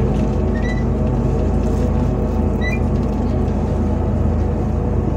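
Steady hum of a MAZ 105.065 city bus running, heard inside the passenger cabin. Two brief high chirps come through, a little under a second in and again near three seconds.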